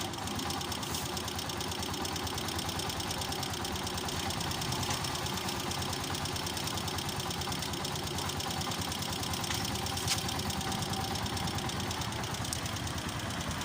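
Honda TMX125 Alpha's single-cylinder four-stroke engine idling steadily just after starting, freshly top-overhauled, with a light regular valve tick that the mechanic puts down to valve clearance set slightly too wide.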